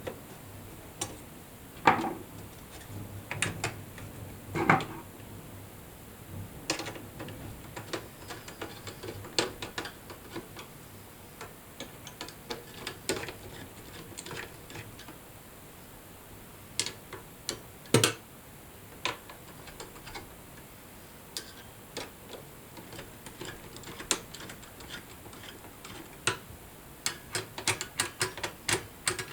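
Irregular clicks and knocks of desktop-computer parts being handled and fitted back together as the heatsink and case are reassembled, with a quick run of small clicks near the end.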